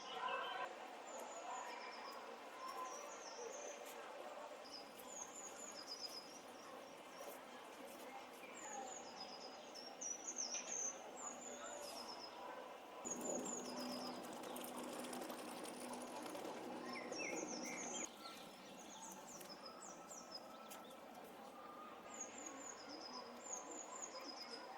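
A songbird singing short, high chirping phrases over and over, a second or two apart, over a low background murmur.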